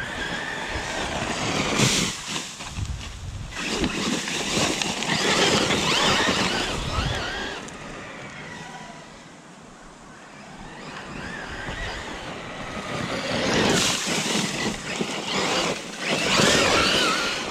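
Losi RZR Pro R electric RC side-by-side being driven hard off-road. Its motor and gear whine rises and falls with the throttle, its tyres scrabble over dirt, and there are a few knocks. The sound fades in the middle and comes back louder near the end.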